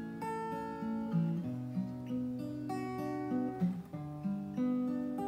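Acoustic guitar playing chords, the notes and bass line changing every second or so, with no voice yet.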